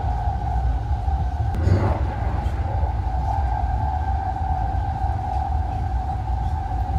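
Interior running noise of the Saphir Odoriko, a JR East E261 series electric express train, in motion: a low rumble with a steady mid-pitched electric whine held level over it, and a brief louder rush about two seconds in.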